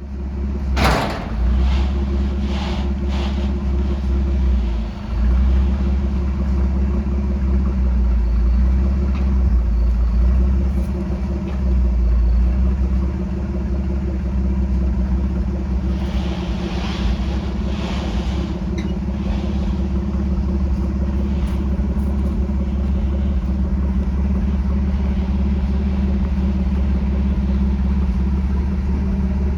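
A 1982 Chevrolet C10 pickup's engine running on its newly installed Rochester 2SE carburetor, a steady low rumble. A few brief sharper noises rise over it about a second in and again around the middle.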